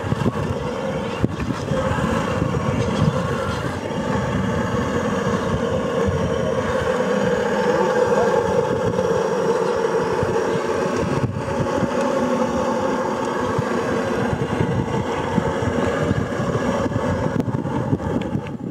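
CrossRC BC8 Mammoth 8x8 RC truck's electric motor and drivetrain gears whining steadily as it crawls slowly over rock.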